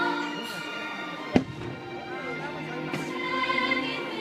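Fireworks-show soundtrack music playing, with a single sharp firework bang a little over a second in.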